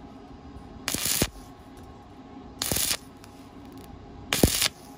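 Stick-welding arc crackling in three short bursts about a second and a half apart, the electrode's arc struck and broken again and again to fill a gap in thin square tubing, over a steady low hum.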